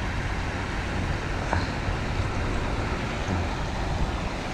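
Steady rumbling wind noise on the microphone, with one faint click about one and a half seconds in.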